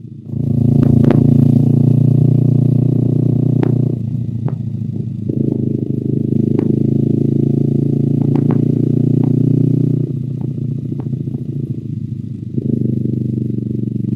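Honda CBR250RR parallel-twin engine through an Akrapovic exhaust, running steadily at low road speed. The exhaust note drops as the throttle eases about four seconds in and again near ten seconds, then picks up again each time. Scattered sharp ticks sound over it.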